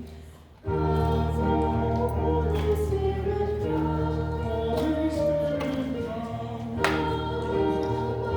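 Opening hymn: a choir singing with instrumental accompaniment in sustained chords. There is a short break about half a second in before the next phrase begins.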